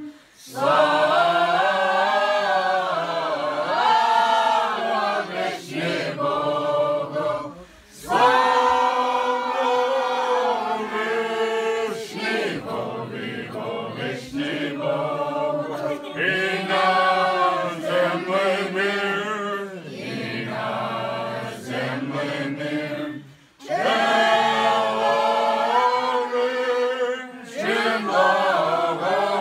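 A group of voices singing an Orthodox Christmas Slaaviq (starring) carol unaccompanied, in long sung phrases with brief breaks between them.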